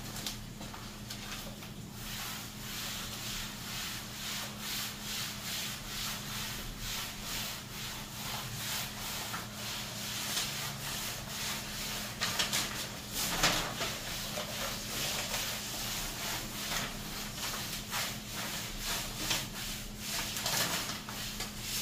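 Hands rubbing and smoothing self-adhesive contact paper onto a wooden tabletop, a rhythmic swishing at about two strokes a second. There are a few louder rustles of the paper a little past halfway.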